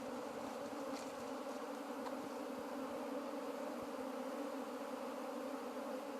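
A swarm of honeybees in flight buzzing with a steady, unbroken hum, the sound of many bees circling as they gather at a log hive.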